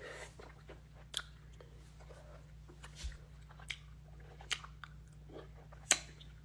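A person chewing wax candy close to the microphone: wet chewing with a handful of sharp mouth clicks and smacks, the loudest near the end.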